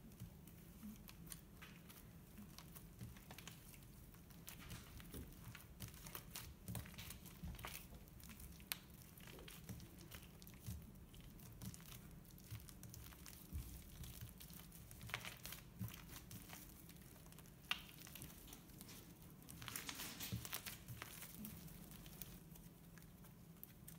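Thick slime being kneaded and stretched by hand as shaving cream is worked into it: faint sticky clicks and crackles, with a denser run of crackling about twenty seconds in.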